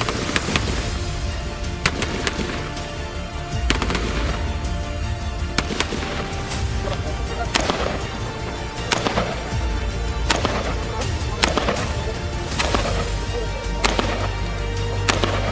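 Background music with a heavy low bass, over a string of single sharp shots from a 5.56 mm M4 carbine, coming about every half second to a second.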